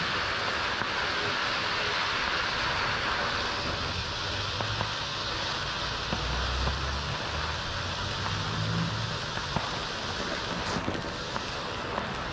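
King Bird Open Sesame ground fountain firework burning with a steady hiss and scattered small crackles, over a low rumble that comes and goes.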